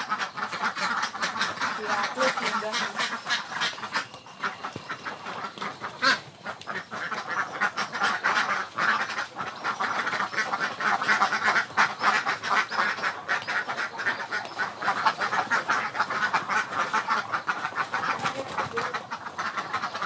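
A flock of ducks quacking and chattering: a dense, continuous stream of short overlapping calls.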